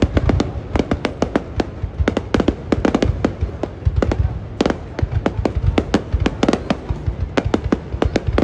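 Fireworks display going off: a rapid, irregular run of sharp bangs and crackles, several a second, over a continuous low rumble of booms.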